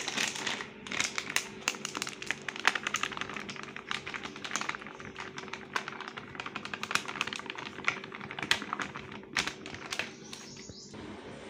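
Plastic flour packet crinkling and crackling in the hand as maida is poured from it into a steel bowl: a dense run of quick small clicks that thins out near the end.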